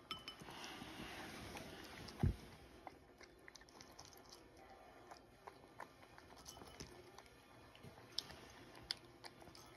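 A cat crunching dry kibble: a run of small, crisp crunches throughout, with a single louder knock about two seconds in.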